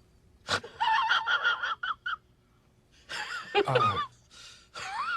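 Comedy sound-effect clips of high-pitched vocal sounds: a quick click, then a choppy, very high giggle, then a second short vocal burst with falling pitch. Near the end a high, wavering whine begins.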